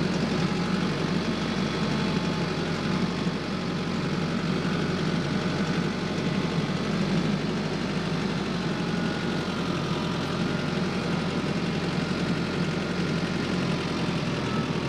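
Tractor engine running steadily at a constant speed with no change in pitch.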